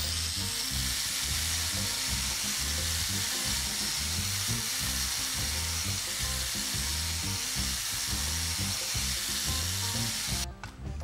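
Angle grinder disc grinding a steel knife blank, a steady hiss that cuts off suddenly near the end. Background music with a steady beat plays underneath.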